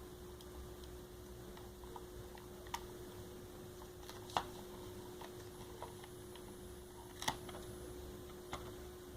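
A few scattered small, sharp clicks and taps of a screwdriver and screws against the plastic shell of a computer mouse being unscrewed, over a steady faint hum.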